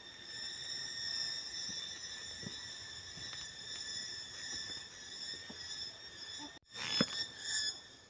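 Insects singing in a steady, high-pitched drone. Near the end it breaks off and returns as short pulsing bursts, with a soft knock among them.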